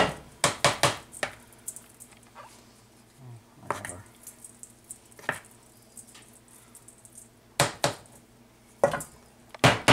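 A spatula and a stainless steel mixing bowl clicking and clanking against a metal loaf pan while thick batter is scraped out and spread, as a string of sharp knocks, several in quick succession at the start and a few more near the end.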